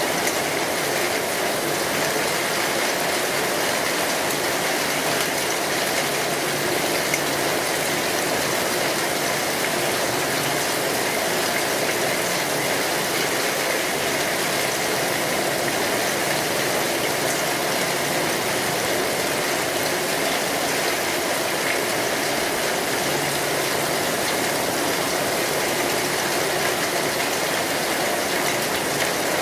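Steady rain falling on a street, a dense, even patter that keeps up without a break.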